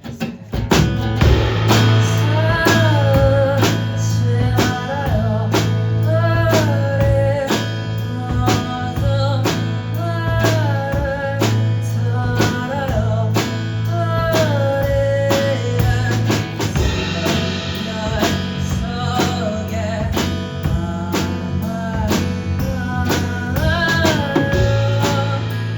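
Live band beginning a song: a drum kit keeps a steady beat under guitar and a steady bass line, with a melody line carried over the top. The band comes in sharply just after the start.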